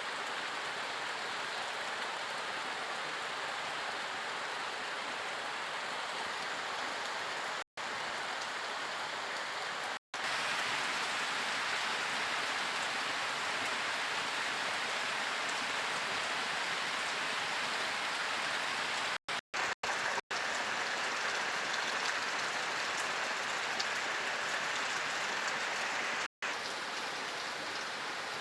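Steady, heavy monsoon rain falling, broken a few times by sudden short gaps of silence.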